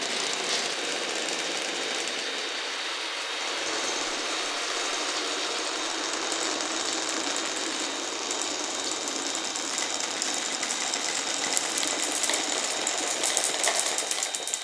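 Glass marbles rolling and clattering along a wooden marble run: a continuous rolling rumble dotted with many small clicks, which grow denser and louder near the end.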